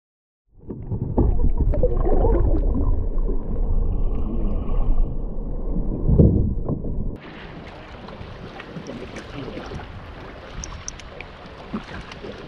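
Loud, muffled rushing and sloshing of lake water picked up by a submerged camera, starting suddenly after half a second of silence. About seven seconds in it cuts to quieter wind and water noise on the open lake around a canoe, with small ticks.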